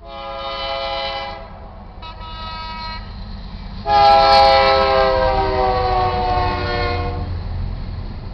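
Chime air horn of a BNSF GE C44-9W freight locomotive sounding for a grade crossing in three blasts. The third blast is the longest and loudest, and its pitch drops as the locomotive passes. The low rumble of the passing train rises behind it.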